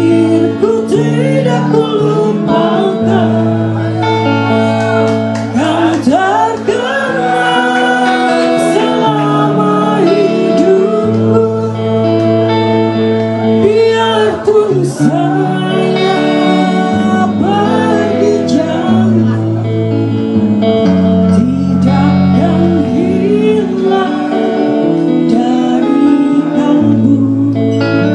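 Indonesian patriotic song sung to guitar and other instrumental accompaniment.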